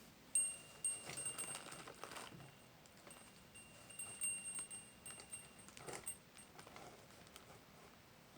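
Small metal bells of a toy bell-ringing Santa tinkling faintly as the toy is handled, with a few light plastic clicks; the ringing dies away about six seconds in.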